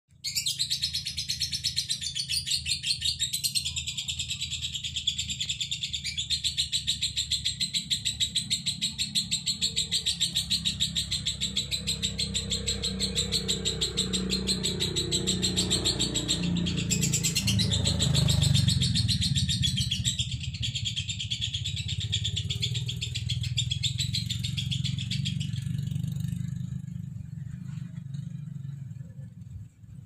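Male lovebird singing a long, unbroken ngekek chatter of rapid high chirps that fades out after about 26 seconds. The uploader offers it as an example of a dry voice with doubled notes. A low rumble runs underneath and swells in the middle.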